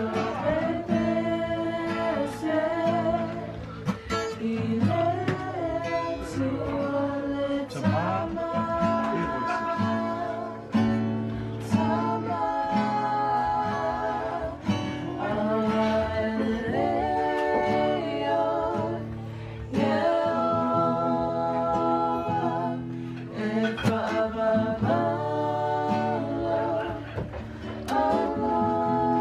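Acoustic guitar strummed in steady chords under a voice singing a slow, held melody.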